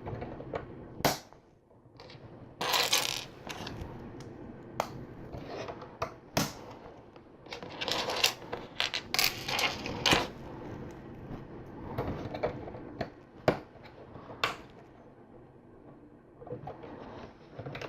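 Plastic LEGO pieces clicking and tapping as they are handled and pressed onto a model, with bursts of parts rattling about a few seconds in and again midway.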